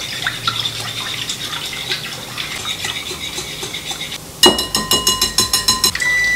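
Batter being stirred in a glass mixing bowl, with small clicks and scrapes against the glass. About four and a half seconds in, an electric oven's control panel beeps rapidly for a second and a half, then holds one steady high beep: the preheat signal that the oven has reached temperature.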